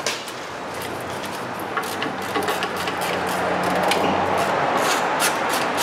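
Hand ratchet clicking in quick, irregular runs as it turns the 14 mm rear caliper mounting bracket bolts loose, the clicks getting denser and louder toward the end.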